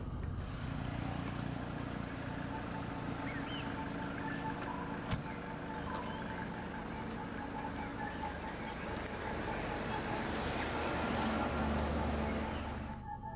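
Street traffic noise, a steady hiss and rumble of passing vehicles that swells near the end, then cuts off abruptly just before the end.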